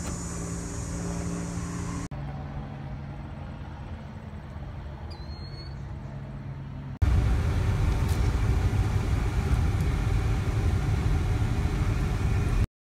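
Steady engine drone of a small propeller aircraft flying overhead, heard in two short clips that cut into each other about two seconds in. About seven seconds in it cuts to a louder low rumble of road noise inside a moving car, which stops suddenly near the end.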